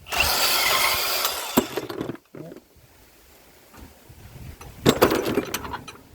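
Milwaukee M18 FUEL cordless deep cut band saw cutting through copper pipe for about two seconds, then stopping abruptly. A few sharp metal clanks follow about five seconds in.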